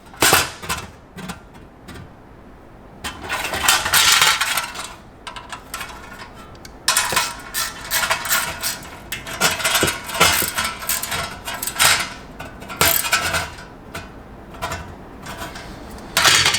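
Metal clinking, scraping and clicking of hand tools on bolt hardware as bolts and coupling nuts are tightened with an 8 mm socket and a Phillips screwdriver. It comes in irregular bursts with sharp clicks.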